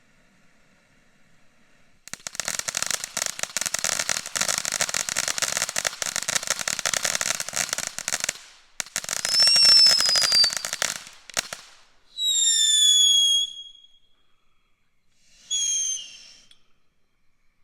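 Novelty consumer firework with a slow-burning wire fuse going off: dense, rapid crackling for about six seconds, then a series of whistles, each dropping slightly in pitch. The first whistle is the loudest and lasts about two seconds; two shorter ones follow.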